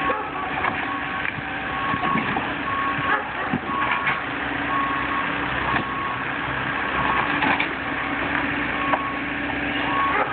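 Mini excavator working, its engine running under a backup alarm beeping about once a second, with scattered sharp knocks and cracks as the machine breaks up a wooden deck.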